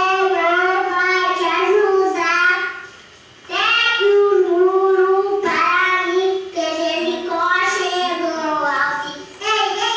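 A three-year-old boy singing unaccompanied, holding long notes, with a short breath pause about three seconds in.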